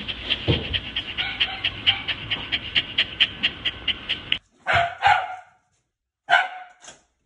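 Shiba Inu panting fast and evenly, about six breaths a second, stopping about four seconds in; two short louder sounds follow near the end.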